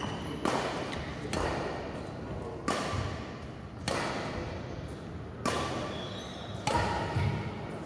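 Badminton rackets striking a shuttlecock: about six sharp hits, one every second or so, each ringing out in a large hall.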